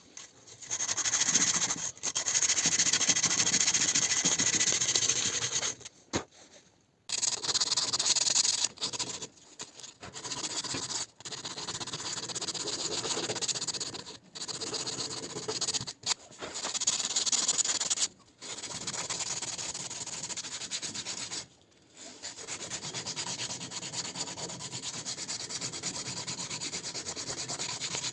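Steady abrasive sanding on the knife in progress, in several stretches of a few seconds that start and stop abruptly.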